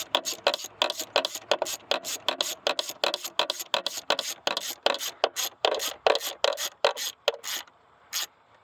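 Socket ratchet clicking in quick, uneven strokes, about six clicks a second, as a bolt is turned. The clicking stops near the end, with two last clicks after it.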